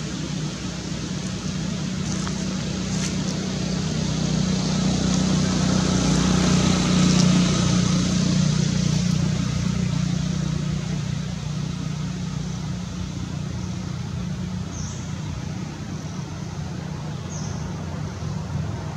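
A motor engine running steadily, with a low hum that grows louder about a third of the way in and then slowly fades, over a wash of background noise. A few short high chirps near the end.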